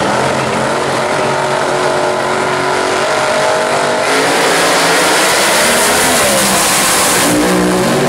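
Two drag-racing funny cars running at the starting line, then launching at full throttle about four seconds in with a loud engine blast. The blast lasts about three seconds and drops away as the cars run off down the track.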